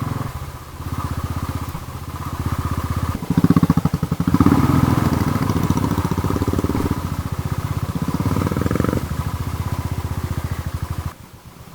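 Royal Enfield Thunderbird 350's single-cylinder engine running as the motorcycle is ridden, its level rising and falling with the throttle and loudest from about three seconds in. The engine sound drops away sharply about a second before the end.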